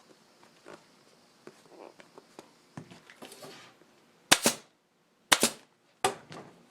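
Staple gun firing three times, about a second apart, driving staples to fasten a motorcycle seat cover to the seat pan, after faint rustling and handling of the cover material.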